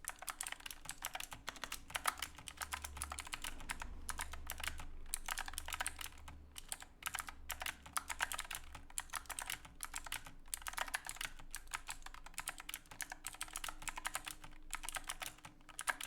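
Fast typing on an Epomaker AK84S mechanical keyboard with clicky Chocolate Blue switches and silicone keycaps: dense runs of sharp key clicks in bursts, with brief pauses between words and phrases.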